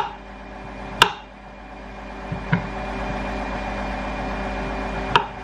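Clothes dryer running with a steady, noisy hum, broken by a few sharp clicks, about a second in and again near the end.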